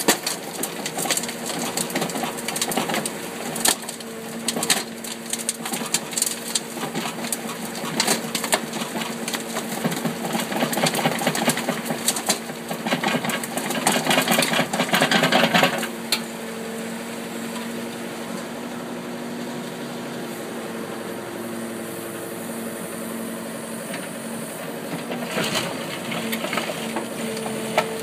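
Mini excavator engine running steadily, with clattering of soil and stones tipped from the bucket onto a conveyor belt. The clatter is heaviest about 12 to 16 seconds in, then mostly the steady engine hum remains until scraping and knocking of the bucket in rocky ground pick up near the end.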